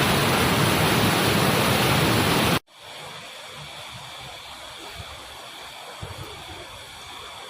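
Loud, steady rush of a waterfall that cuts off abruptly about two and a half seconds in. It gives way to a much quieter background with a steady, high-pitched insect chorus.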